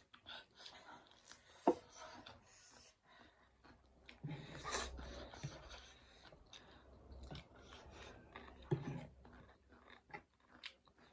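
Person eating noodles close to the microphone: quiet chewing with scattered small clicks and smacks, a sharper one about two seconds in and another near the end.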